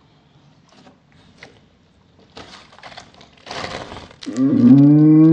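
Green slime with gelatin candy eyeballs squelching as it is squeezed between hands: irregular wet squishes starting about two seconds in. Near the end a loud low tone slides up in pitch and then holds steady.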